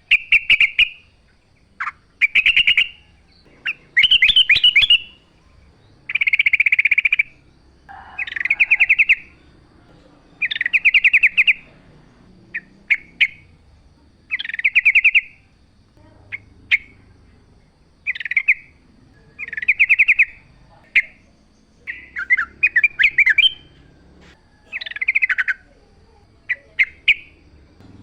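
Yellow-vented bulbul (trucukan) singing loudly: short bubbly phrases repeated every second or two, each a quick run of notes, with sharp clicks between phrases.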